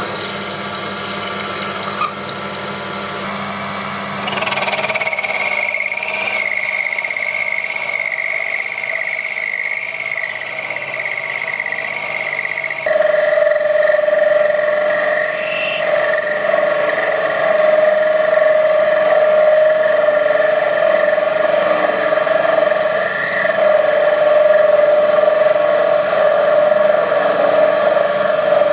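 Proxxon PD 250/E mini lathe running under cut, drilling the through hole in a small nut and parting it off. It makes a steady machine whine whose pitch changes abruptly about four seconds in and again near the middle.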